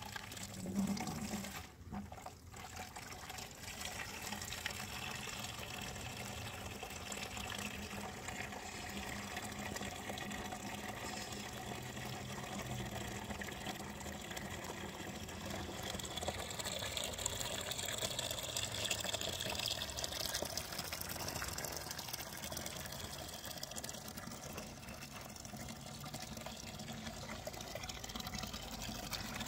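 Water running steadily, as when a container is being filled.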